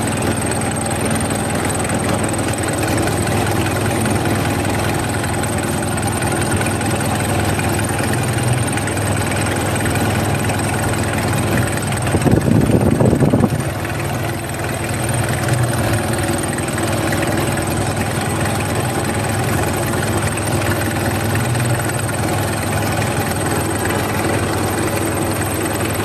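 Turbocharged engine idling roughly, with a brief louder swell about halfway through.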